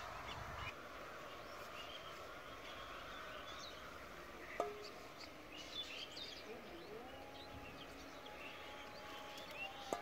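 Faint rural outdoor ambience: scattered short bird chirps over a low steady background, with a sharp click about halfway and a long steady tone over the last three seconds.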